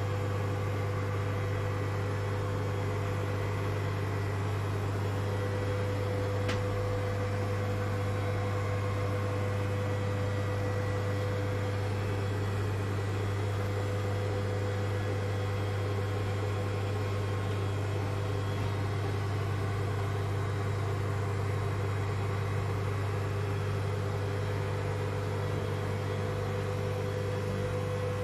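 Engine-room machinery of an old ship, its diesel engines, running with a steady, unchanging low drone and a constant hum.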